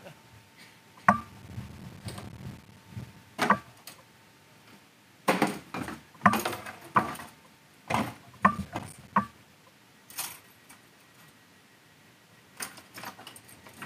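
Portable folding wheelchair boarding ramp being handled and moved at a train doorway: a string of irregular clanks, knocks and rattles, busiest in the middle, with a pause before a last few knocks near the end.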